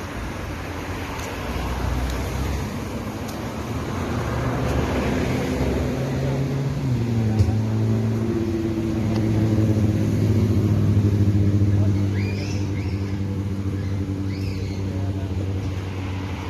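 A motor vehicle's engine running steadily, its pitch stepping to a new level about seven seconds in and growing louder for a few seconds after.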